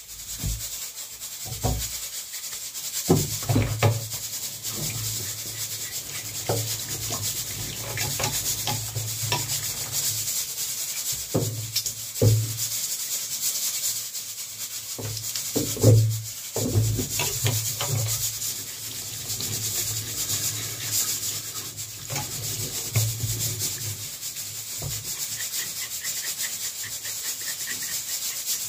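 Food being grated by hand: repeated rasping, scraping strokes of a piece rubbed back and forth against a grater, with a few louder strokes along the way.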